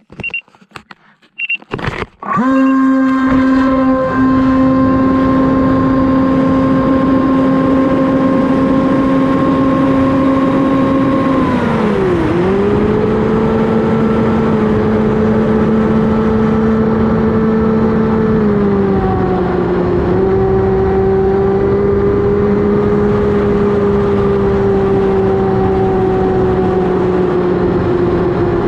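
Electric motor and propeller of an AtomRC Dolphin FPV plane: a few clicks and short beeps, then the motor starts suddenly about two seconds in and runs at a steady, high hum with air rushing past. Its pitch slides down about twelve seconds in and steps down again near nineteen seconds as the throttle is eased.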